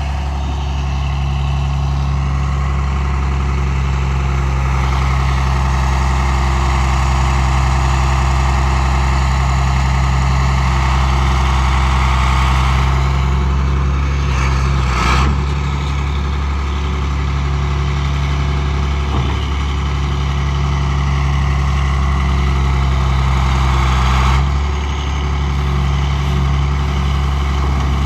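Heavy farm machine's engine running steadily while it pushes steel fence posts into the ground, with a short knock about halfway and a drop in the engine note near the end.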